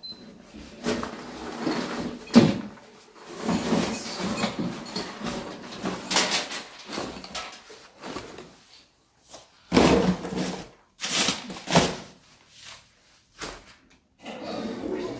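Papers, exercise books and a cardboard box being handled and dropped onto a pile: irregular rustling and shuffling broken by several sharp knocks, the loudest about two seconds in and others around ten and twelve seconds.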